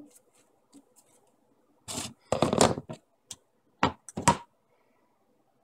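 Hard white PVC pipe pieces and fittings being handled and pressed together on a workbench: a few short bursts of scraping and clattering with sharp knocks, the loudest a rattling scrape between two and three seconds in.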